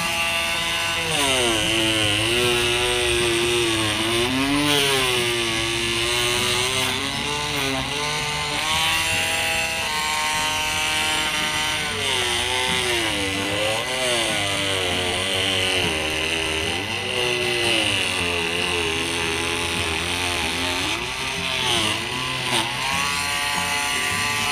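INGCO CMLI2001 20V cordless oscillating multi-tool running at turned-up speed, its blade cutting through the hard husk of a Monthong durian. The motor's pitch keeps dipping and recovering as the blade loads up, and it stops abruptly at the end.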